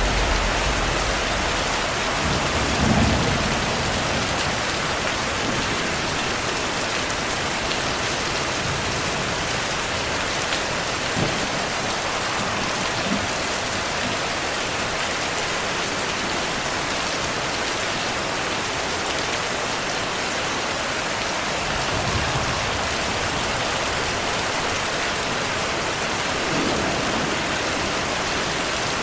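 Heavy rain falling steadily, with low rolls of distant thunder rumbling up about three seconds in and again around twenty-two seconds.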